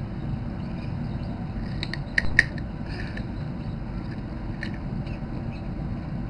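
Newly hatched chicks giving a few short, high peeps, a quick cluster about two seconds in and another later, over a steady low hum.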